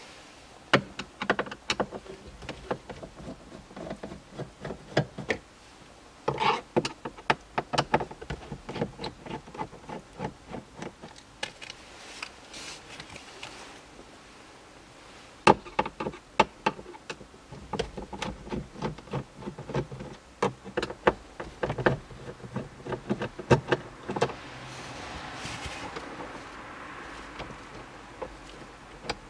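Runs of sharp clicks and ticks from a screwdriver and the plastic dashboard trim as the self-tapping screws holding the glove box are undone, with pauses between the runs. A softer rustle follows near the end.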